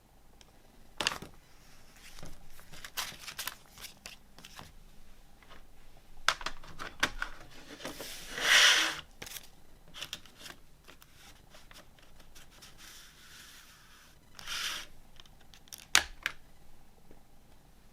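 Hands handling a CD album and its packaging: scattered light clicks and rustling, with a louder sliding swish lasting about a second midway and another shorter one near the end.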